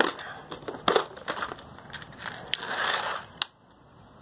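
Clear plastic parts organizer box being handled and opened: a series of sharp plastic clicks and rattles, with a rustling scrape about three seconds in and a last click just after.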